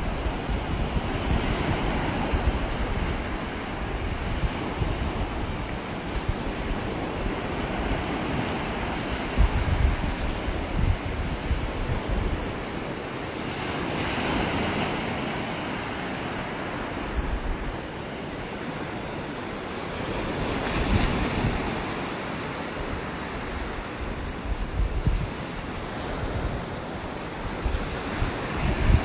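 Ocean surf washing onto a beach, a steady rush that swells and falls back as waves break, with wind gusting on the microphone.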